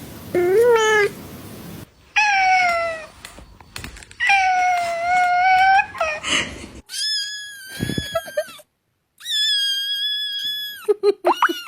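Cat meowing repeatedly: about six drawn-out meows of varying pitch, some rising or falling, and two long high ones held steady for over a second.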